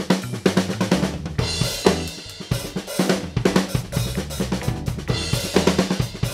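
Acoustic drum kit played in a steady groove: snare and bass drum hits under hi-hat and cymbal wash, with toms ringing. The kit is being tried out with newly fitted Remo drumheads and new Tama snare wires.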